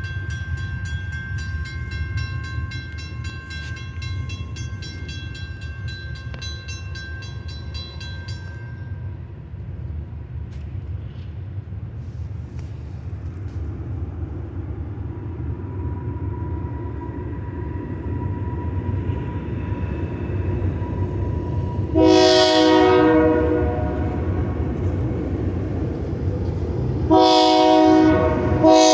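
Providence and Worcester freight train nearing a grade crossing: the low rumble of its diesel locomotives grows steadily louder, while the crossing bell rings for the first third and then fades out. About two-thirds in, the lead locomotive's multi-note air horn sounds a long blast, then another loud blast near the end, the warning for the crossing.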